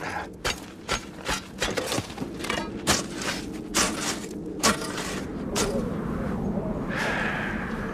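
A hand tool scraping and chopping into frozen snow and gravel in short, irregular strokes, about two a second. After about five seconds the strokes give way to a steady rushing noise.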